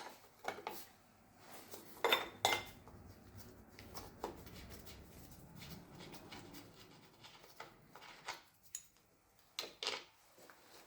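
Metal hand tools clinking and clicking on the engine's fastenings as the timing case cover is unbolted: a dozen or so separate sharp clinks, with a faint scraping between them.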